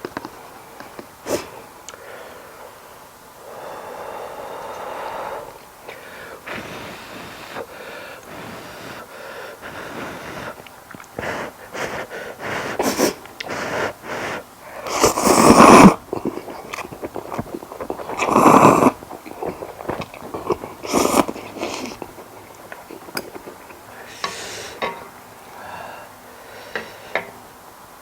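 A person eating with their mouth close to the microphone: chewing, small mouth clicks and sniffing, with two loud breathy bursts in the middle, about three seconds apart.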